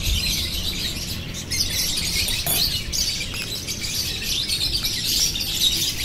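Many small birds chirping continuously, a dense high twittering.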